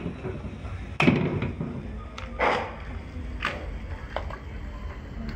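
A few dull thuds and knocks at a wok of simmering soup, about four in all and the first two loudest, as liquid is poured in, over a low steady hum.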